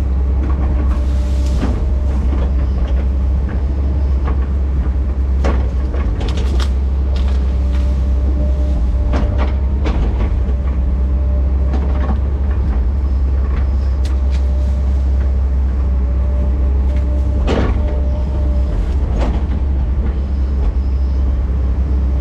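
Heavy earthmoving machine's diesel engine running steadily with a low drone, with scattered sharp knocks and cracks from the machine working brush and dirt; the loudest comes about three quarters of the way through.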